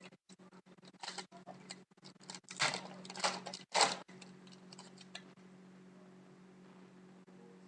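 Hockey trading cards being handled: a series of light clicks and taps, with three louder rustles about halfway through, over a steady low hum.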